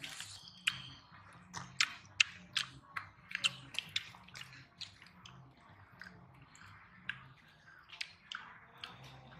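Eating sounds: irregular wet clicks and smacks as grilled fish is picked apart by hand and chewed, over a faint low hum.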